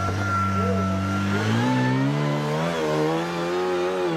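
Rock-crawling buggy's engine revving as it climbs a steep rock face: it holds a steady note, rises in pitch about a second and a half in, then wavers up and down as the throttle is worked, with a thin high whine above it in the first half.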